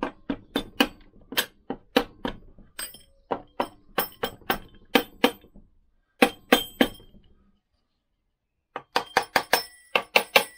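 Hammer lightly tapping the gearbox end plate of a Lambretta scooter engine, a run of sharp metallic clinks about two or three a second, easing the plate on over a shim. The taps stop for about a second near the end, then come quicker.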